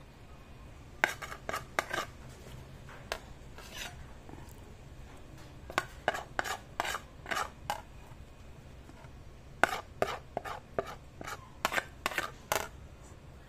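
Metal spoon scraping and clinking against a ceramic plate while scooping up rice, in three short runs of quick strokes with pauses between.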